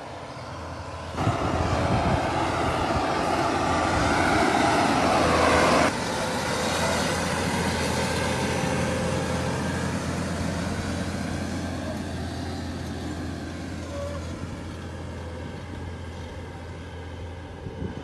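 John Deere 8RX 370 tracked tractor's 9.0-litre six-cylinder diesel working under load while pulling a plough, mixed with the noise of its tracks. It gets suddenly louder about a second in, stays loudest until about six seconds in, drops abruptly, then fades slowly as the tractor moves away.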